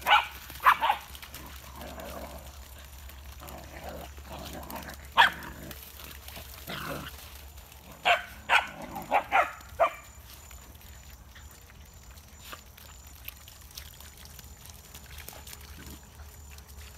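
Pack of dogs barking: single sharp barks at first, then five or six in quick succession around eight to ten seconds in, after which it goes quieter.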